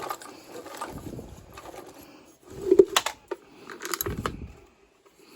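Metal clinks and knocks from tools and furnace parts being handled, with two sharp clinks at about three and four seconds in, over a faint steady hum.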